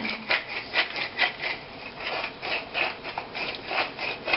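Pepper mill being twisted to grind black pepper onto the steaks: quick, evenly repeated grinding strokes, several a second.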